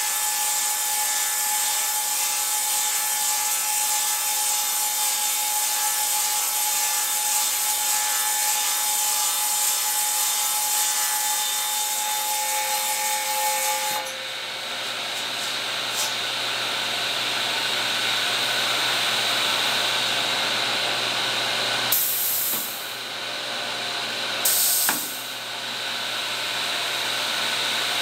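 Table saw blade cutting into a log held in a TC 300 tenon cutter, shaping a square-shoulder tenon: a steady sawing of wood with a thin steady whine. About halfway through, the sound changes abruptly, and two short bursts of noise follow later on.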